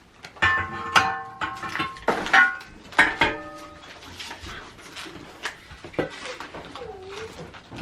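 Steel tube pieces of a metal platform bed frame knocking together. Several sharp clanks in the first three seconds each ring on briefly, like struck metal, followed by softer knocks.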